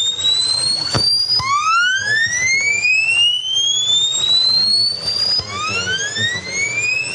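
Rising electronic tone sweeps received on a home-built shortwave crystal radio and played through speakers: each glide climbs steadily for about four seconds, then a new one starts low again, over a hiss of radio noise. A sharp click comes about a second in. The owner takes the sweeps for HAARP transmissions.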